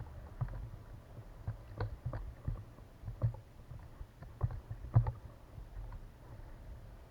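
Irregular knocks and bumps on a kayak, about a dozen, over a low rumble; the loudest knock comes about five seconds in.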